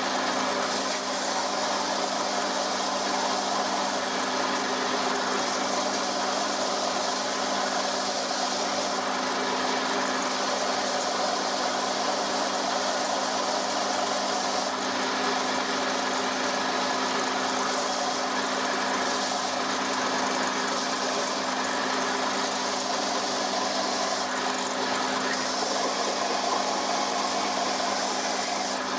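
Combination belt-and-disc sander running steadily with a motor hum, as a small wooden box is pressed against its moving sanding belt. The hiss of wood being sanded comes and goes as the box is worked on and off the belt.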